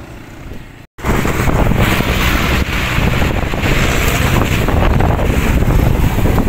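Wind buffeting the microphone: a loud, steady rough rumble that starts abruptly about a second in after a brief dropout.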